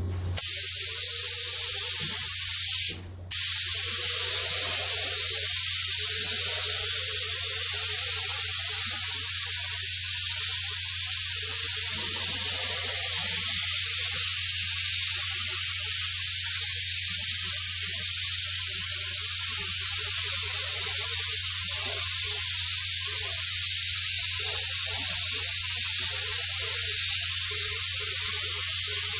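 Paint spraying onto motorcycle fairing panels: a steady loud hiss of spray that cuts out briefly about three seconds in, then runs on without a break.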